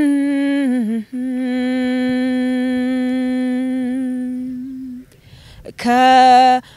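A woman singing unaccompanied into a microphone, holding long notes: one slides down and ends about a second in, then a long steady hummed note for about four seconds, a short pause for breath, and a new note starting near the end.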